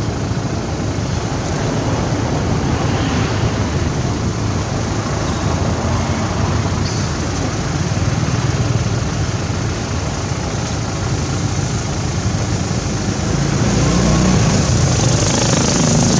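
Steady outdoor background rumble and hiss, like road traffic or wind, getting louder near the end.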